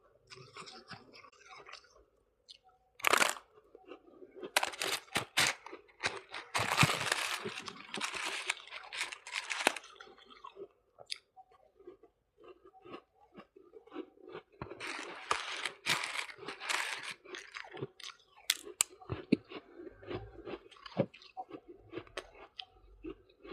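Close-up crunching and chewing of soft white freezer-frost ice. There is a sharp bite about three seconds in, then two long spells of dense crunching, with quieter chewing clicks between them.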